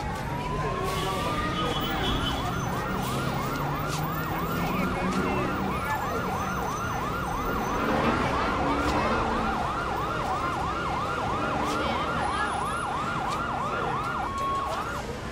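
Emergency vehicle siren sounding: a slow wail switches to a fast yelp of about three sweeps a second, holds one steady tone briefly near the end, then goes back to the slow wail.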